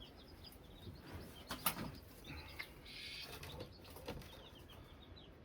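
Faint, high bird chirps come in short runs, with a few sharp clicks about one and a half seconds in.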